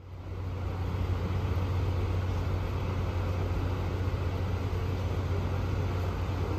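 Steady low rumble of street traffic, fading in over the first second and then holding level.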